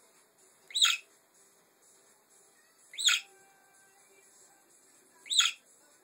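Budgerigar giving three short, sharp chirps, each with a quick bend in pitch, spaced about two and a half seconds apart.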